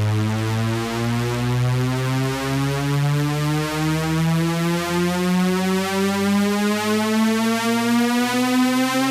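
Synthesizer ringtone tune: one buzzy synth tone held through a string of notes, each a little higher than the last, so the pitch climbs steadily.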